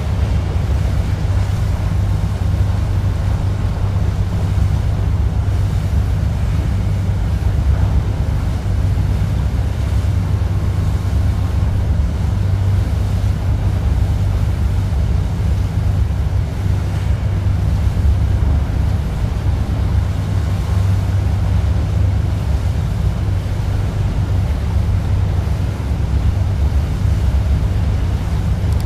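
Wind buffeting the microphone and water rushing past aboard a moving tour boat, a steady low rumble.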